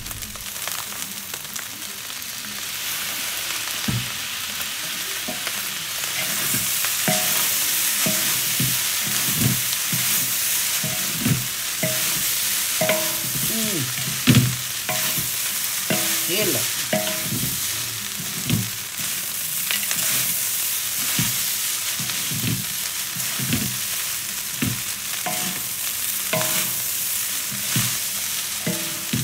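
Fried rice being stir-fried in a wok: a steady sizzle, louder from about six seconds in, with the stirring utensil repeatedly scraping and knocking against the wok.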